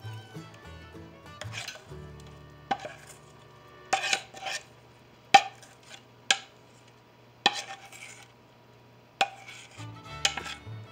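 A metal spoon scraping thick batter out of a stainless steel mixing bowl, clinking sharply against the bowl about seven times at irregular intervals. Soft background music plays underneath.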